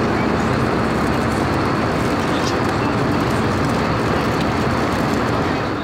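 Steady cabin noise of an Airbus A320 in flight, heard from a passenger seat: an even rush of engine and airflow noise, beginning to fade out at the very end.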